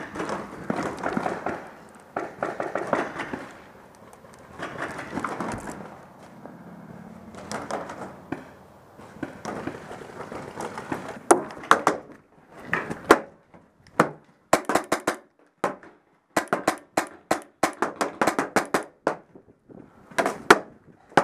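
Paintball gunfire: volleys of sharp pops, several a second, with short gaps between bursts, loudest and densest in the second half.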